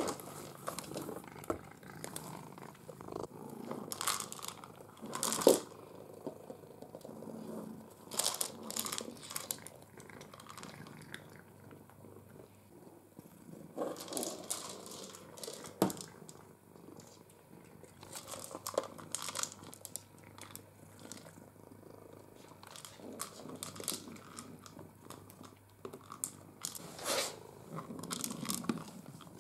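A hard plastic ball feeder nosed and pawed across a laminate floor by a cat, rolling and knocking, with a few sharp knocks and short rattles scattered through.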